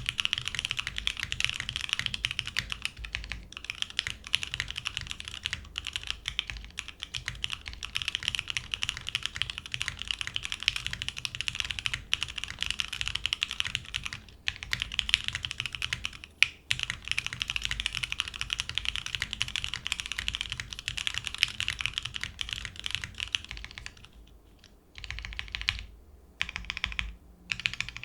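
Mechanical keyboard typing: lubed Lavender linear switches in a Monokei x TGR Tomo with a polycarbonate plate on o-ring mount, GMK keycaps and no foam, clicking in a fast, steady stream. About 24 seconds in, this changes to separate short runs of presses on the modifier keys, with gaps between them.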